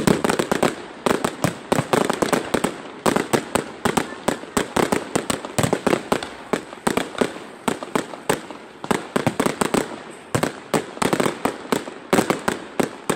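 Fireworks display: aerial shells bursting in a dense, rapid volley, several bangs a second.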